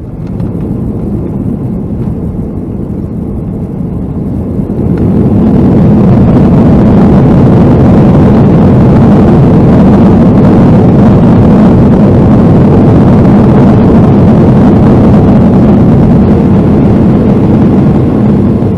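Boeing 757-200's engines heard from inside the cabin during the landing roll: a loud steady rush that swells sharply about five seconds in as reverse thrust builds, holds, then eases off near the end.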